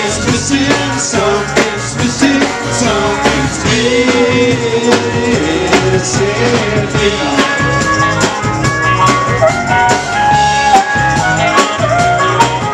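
Live rock band playing, with electric guitar, drum kit and tambourine over a steady beat.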